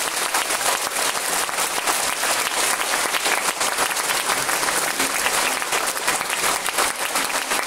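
An audience and the performers on stage applauding: dense, steady clapping.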